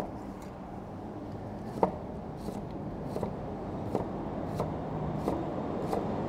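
Large kitchen knife dicing an onion on a wooden cutting board: sharp knocks of the blade on the board, a couple at first, then about one every half to three-quarters of a second from about two seconds in.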